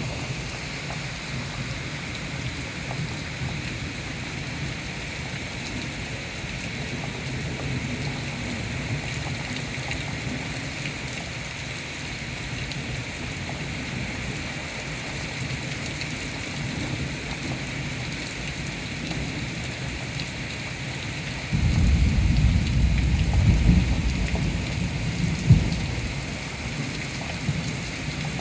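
Steady rain hissing in a thunderstorm. About three-quarters of the way through, a loud rumble of thunder breaks in suddenly and rolls on for several seconds, with one sharp crack near its end.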